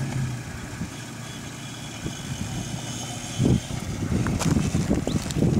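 Toyota Tacoma pickup crawling down a rocky trail at low speed, its engine running near idle. A heavy thump about three and a half seconds in, then rough crackling and rumbling grows louder toward the end.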